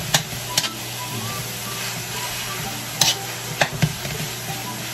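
Ground beef sizzling in a large aluminium wok while a metal spatula stirs and breaks it up, with a steady hiss and a few sharp scrapes and clicks of the spatula against the pan, near the start and again around three to four seconds in.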